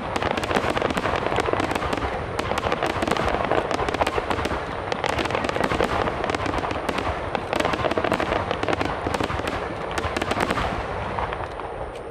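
Fireworks finale: a dense, continuous barrage of aerial shell bursts and crackling reports, thinning out and getting quieter near the end.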